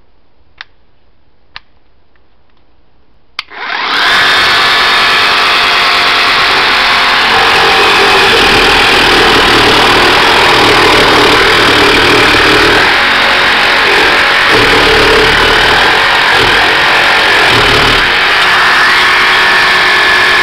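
A few faint clicks, then a Bosch GST 10,8 cordless jigsaw starts about three and a half seconds in and runs loud and steady with its orbital (pendulum) action on, sawing through a wooden board. It stops right at the end.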